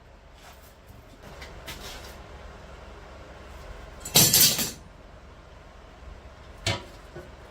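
Steel clanking while riveting a stainless steel cooking plate's legs on: a short cluster of sharp metal strikes about four seconds in, and a single clank near the end, over a steady low hum.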